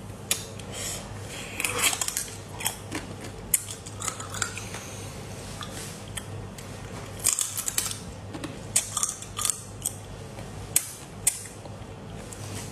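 Crab shell cracking and crunching between teeth as pieces of crab claw are bitten into, in sharp clicks and crackles that come in clusters every second or two, over a faint steady low hum.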